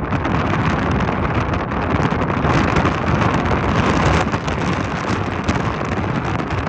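Strong gusting wind buffeting the microphone: a loud, rushing noise that rises and falls without letup.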